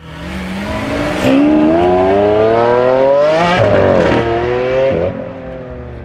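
Car engine revving hard: the pitch climbs for about two and a half seconds, breaks near the middle and climbs again, then drops to a lower steady note about five seconds in.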